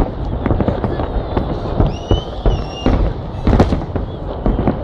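Fireworks salute going off: many sharp bangs in quick, uneven succession, with a high whistle lasting about a second near the middle and voices of onlookers under it.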